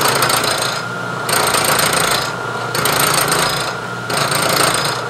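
End mill on a vertical milling machine side-milling the wall of a notch in a metal block, over the steady hum of the spindle. The cutting noise swells and eases in a regular rhythm, loud for about a second, then quieter for about half a second.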